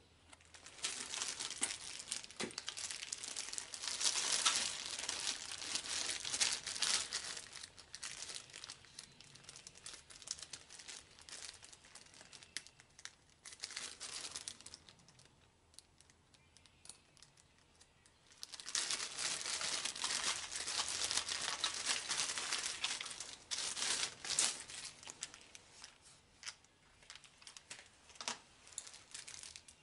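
Packing material being crinkled and torn while packaging is unwrapped. The crackling comes in two long stretches with a quieter pause of a few seconds in the middle.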